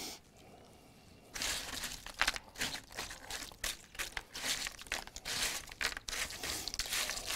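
Chocolate-coated Chex cereal being tossed and turned by a gloved hand on a parchment-lined sheet pan: irregular rustling and crackling that starts about a second and a half in.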